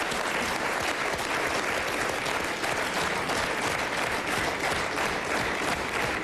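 Studio audience and panel applauding, steady hand-clapping.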